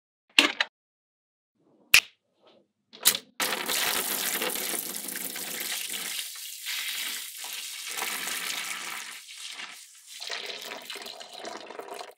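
Three sharp clicks of magnetic-ball pieces snapping into place, then from about three seconds in, water poured steadily into small clear plastic tanks, a continuous splashing pour that swells and dips.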